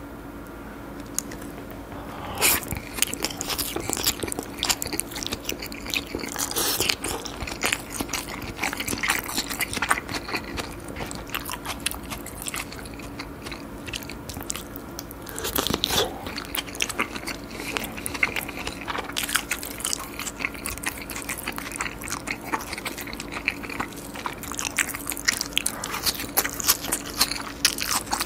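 Close-miked chewing and biting of raw salmon sashimi with sliced raw onion and salmon nigiri: a dense run of wet clicks and crisp crunches, with a few louder bites.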